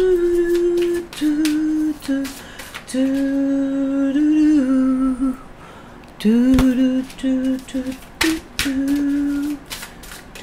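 A woman humming a slow tune in long held notes with short breaks, over light clicks and taps of tarot cards being handled, drawn and laid on the cloth-covered table.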